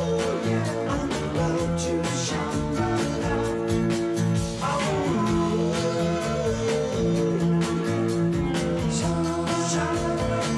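A song playing, with singing over guitar and a steady beat.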